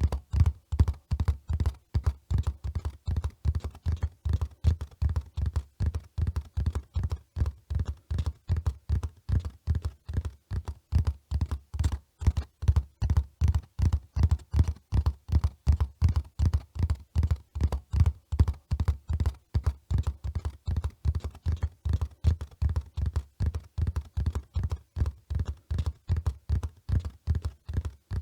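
Horse hooves beating in a steady running rhythm, about three dull, low thuds a second.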